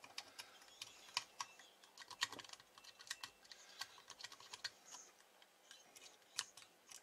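Faint, irregular small clicks and taps of a screwdriver working on the circuit board and parts inside an aluminium CB amplifier case.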